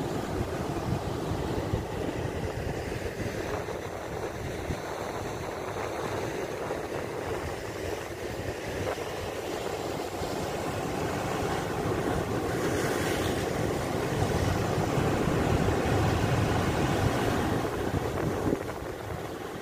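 Sea waves breaking and washing over flat shoreline rocks, a steady surf noise that swells louder in the second half. Wind rumbles on the microphone underneath.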